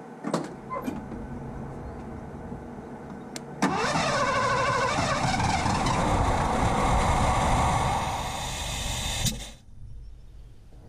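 Carbureted Ford 302 V8 in a 1984 LTD Crown Victoria firing up about a third of the way in and revving up, running for about five seconds, then dying suddenly: the engine will fire but won't stay running.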